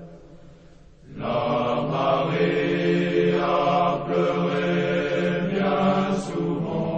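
A marching column of cadets singing a French military marching song in unison, many voices together. After a short pause the singing starts up again about a second in and carries on in steady phrases.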